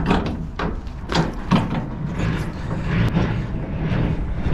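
Semi-trailer landing legs being wound down by the crank handle, the leg gearing turning with irregular clicks, over a truck's diesel engine idling steadily.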